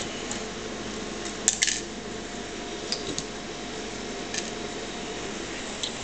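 Screwdriver working a small screw into the steel expansion-slot bracket of a computer case: a few sharp metallic clicks and clinks, the loudest two close together about a second and a half in.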